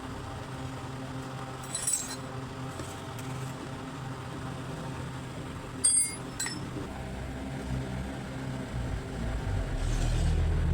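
A few sharp metallic clinks, like tools or metal parts knocking together, over a steady low engine hum that swells near the end.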